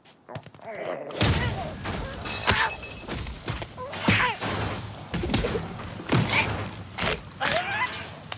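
Cartoon slapstick sound effects: after a near-silent first second, a busy run of thuds and knocks mixed with wordless character cries and squawks.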